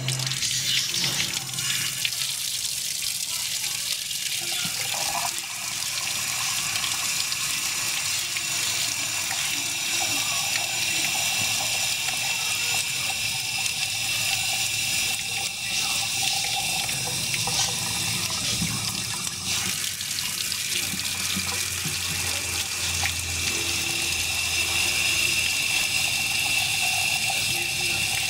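Water running from a faucet in a steady stream, with a thin, steady high-pitched tone over the rushing.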